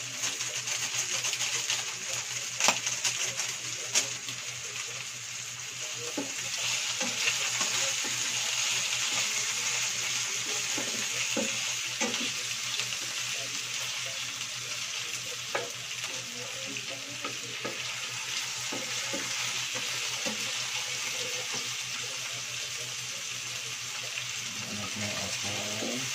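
Pork pieces sizzling steadily as they fry in a nonstick frying pan, with a spatula scraping and stirring them around the pan. A few sharp clicks stand out, the loudest in the first few seconds.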